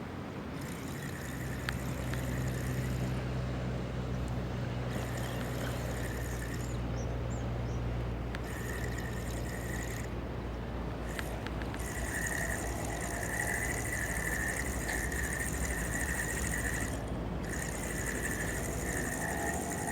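Water lapping and trickling, over a steady low motor drone.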